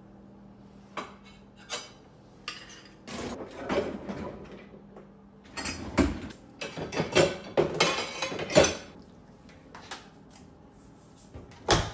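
Scattered clinks and knocks of hard objects, sparse at first and then a busier run of clatter in the middle.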